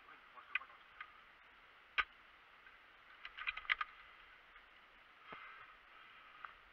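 Airsoft guns firing: a single sharp crack about two seconds in, then a quick burst of clicks a second later, with a few fainter ticks before and after.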